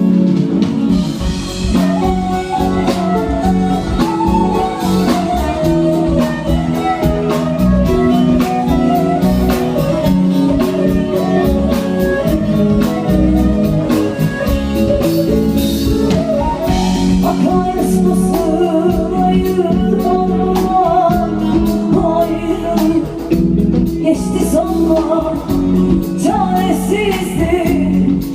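Live band playing a Turkish folk song: a woman singing an ornamented, wavering melody over steady drums, bass and plucked strings.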